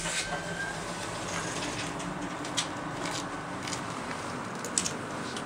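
Elevator car doors finishing their slide open, then steady background noise with a low hum coming in through the open doorway, broken by a few light clicks.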